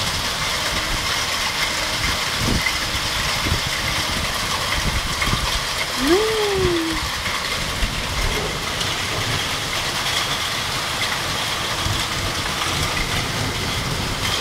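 Heavy storm downpour falling steadily, with a low rumble underneath. About six seconds in, a short tone rises and then falls.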